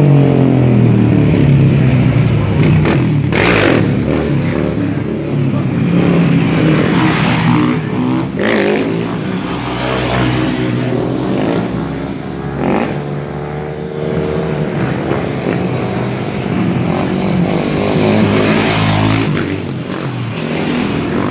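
Motorcycle engines revving hard as the bikes ride past on wheelies one after another, the engine pitch sweeping up and down with each pass.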